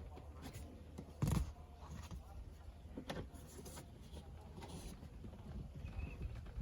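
Scattered plastic clicks and knocks as a BMW E9x dashboard air vent is worked loose and pried out by hand, the loudest knock about a second in, over a low steady hum.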